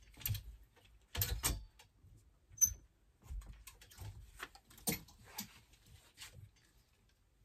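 Clothing being handled: scattered soft rustles of fabric and small knocks, with one sharper click about two and a half seconds in.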